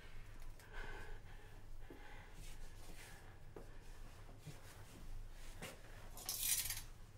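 Faint, scattered clinks of metal cutlery being handled on a kitchen counter, with one short, louder rustling hiss near the end.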